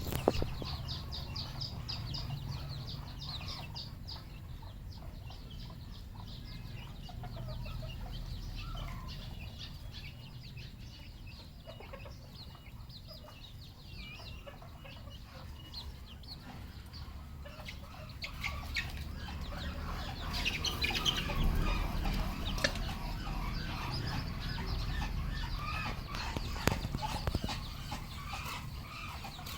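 Red junglefowl clucking and calling, with several birds at once and a busier, louder stretch about two-thirds of the way through.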